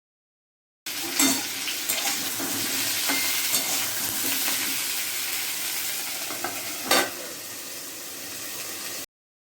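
Food sizzling in hot oil in a pan while being stirred, with several sharp knocks of the spoon against the pan. The loudest knock comes about seven seconds in. The sound starts about a second in and cuts off suddenly near the end.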